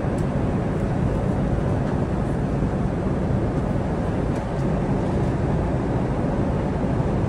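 Airliner cabin noise in flight: a steady rush of engine and airflow noise heard inside the cabin, heaviest in the low range.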